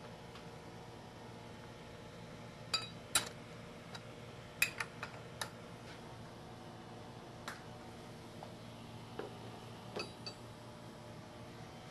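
Metal tools and lathe parts being handled: a scattering of light metallic clinks and taps, some ringing briefly, over a faint steady hum.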